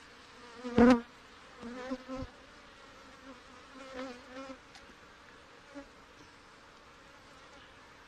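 Honey bees buzzing close to the microphone as they fly over an open hive, in passes that come and go. The loudest is a sharp, brief burst about a second in, with more passes around two and four seconds.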